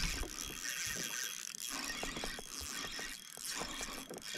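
Fishing reel clicking in short irregular ticks while a hooked bream is played in.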